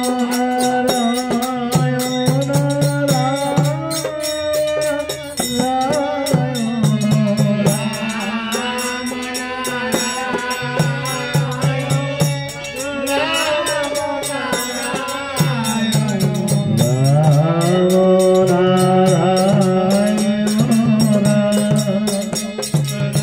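Male voices singing a devotional song into microphones, accompanied by a harmonium and a hand-played two-headed barrel drum keeping a steady beat.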